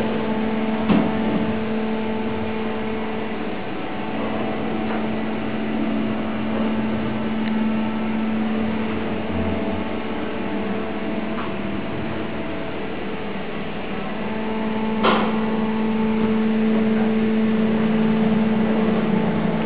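Schindler elevator car travelling, its drive and car giving a steady low hum with a constant tone, and two sharp clicks, one about a second in and one near three quarters of the way through.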